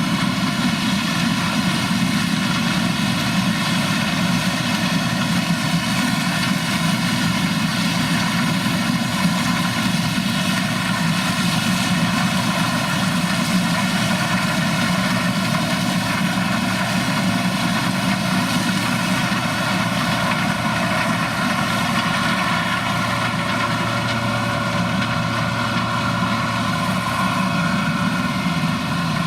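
Large harvest machine's diesel engine and drive running steadily, a constant engine drone with a dense layer of steady mechanical whine above it. A low hum comes in about twenty-three seconds in.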